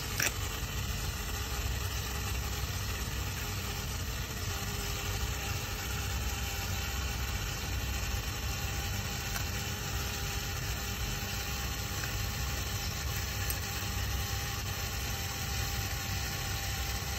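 A running engine or motor, a steady low rumble with a faint steady tone above it.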